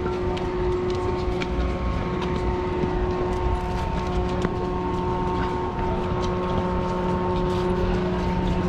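Steady mechanical hum holding several constant tones over a low rumble, with scattered light clicks and ticks.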